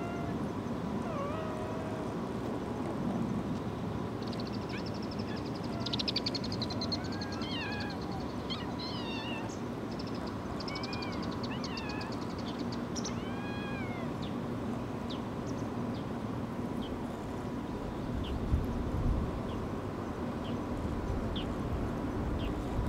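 Kittens mewing, short high calls repeated a number of times while they nurse, over steady outdoor background noise.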